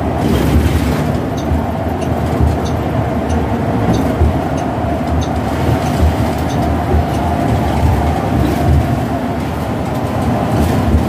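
Inside a city transit bus on the move: a steady low rumble of engine and road noise, with a steady whine over it and a few faint rattles.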